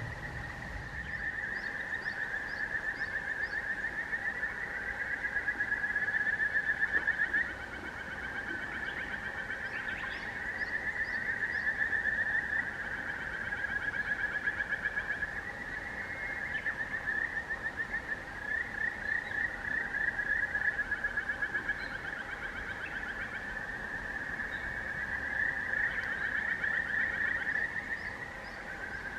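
A continuous chorus of frogs trilling, the fast pulsed trills overlapping and swelling and easing in waves. Short runs of high chirps come through a few times over it.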